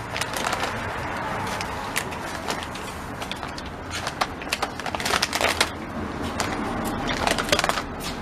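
Plastic poly mailer bag crinkling and rustling as it is cut and pulled open with scissors, in irregular bursts of sharp crackles.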